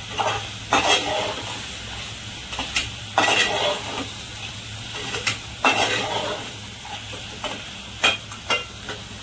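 Steel slotted spoon scraping and clinking against an aluminium pot as chicken pieces are stirred in masala, in irregular strokes every second or so, over a faint sizzle of the frying spices.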